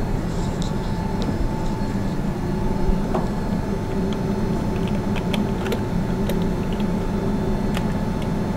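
Steady machine hum from running laboratory equipment, with a few faint clicks in the middle and later part as switches on the equipment's control panel are worked.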